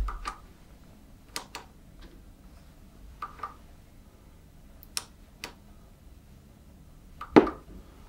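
Espresso machine's buttons and switch clicked several times while the machine stays off, with no sign of it starting, then a louder knock near the end.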